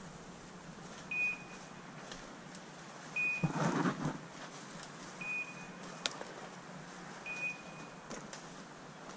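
Electronic beeper on a hunting dog's collar, giving a short high beep about every two seconds. A louder rustle of brush, about a second long, comes about three and a half seconds in.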